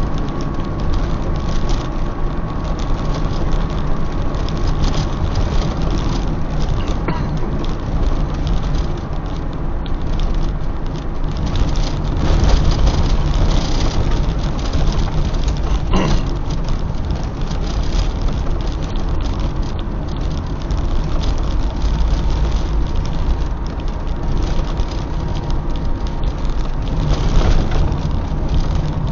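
A car driving along a road: steady engine and tyre noise with some rattling, and a few sharp knocks from bumps.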